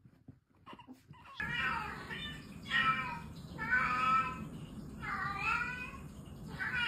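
A cat meowing, five drawn-out meows about a second apart, starting about a second and a half in.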